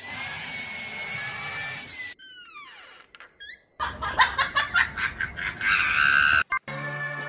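A vacuum cleaner running with a steady whine, cut off after about two seconds by a quick run of falling whistle tones. Then a person laughing loudly in rhythmic bursts, and music starting near the end.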